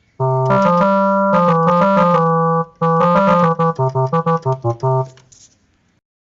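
A short keyboard music jingle: held chords for about two and a half seconds, a brief break, then a run of short, quick chord stabs that stops about five seconds in.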